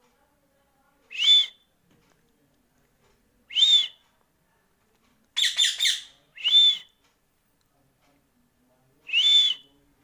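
Indian ringneck parakeet whistling short, high notes: single whistles every two to three seconds, with a quick run of three notes a little past the middle.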